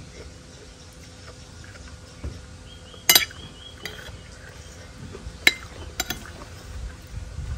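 Metal spoon and fork clinking against a ceramic plate while eating. There is a loud clink about three seconds in, another sharp one past five seconds, and a quick double clink just after.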